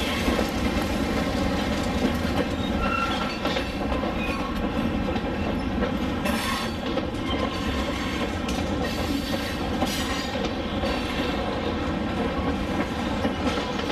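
HO scale model freight train rolling past, its wheels clicking steadily over the rail joints, with a few brief faint wheel squeaks.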